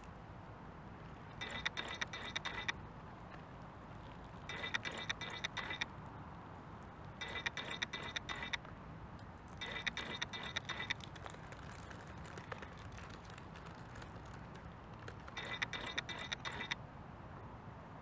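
Homemade 1/10 RC rock crawler driven in five short bursts of about a second each, its Fusion Pro brushless motor and drivetrain giving a high electric whine with gear clatter and clicking as it climbs over rocks.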